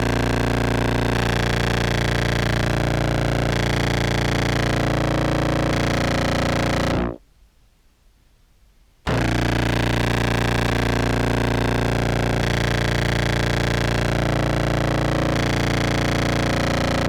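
A sampled contrabass clarinet holding its lowest C through a Behringer Brass Master fuzz pedal: a dense, distorted, buzzing drone rich in overtones. It sounds twice, about eight seconds each time, with a two-second break about seven seconds in.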